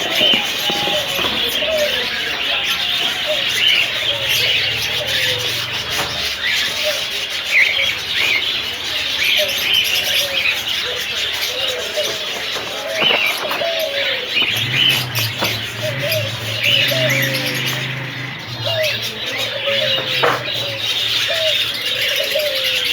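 A flock of kept birds chirping continuously, with many short, overlapping calls. A low hum joins in about two-thirds of the way through.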